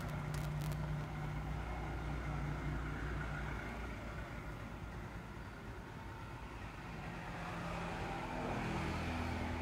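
Steady low engine-like hum with a few pitched tones, shifting in pitch slightly about eight seconds in.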